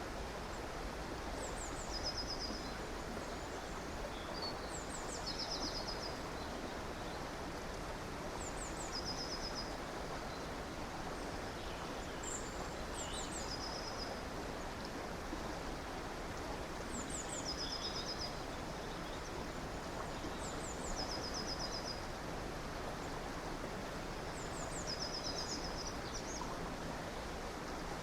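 Steady rushing of a stream, with a bird repeating a short, high, quick trilled phrase about every four seconds.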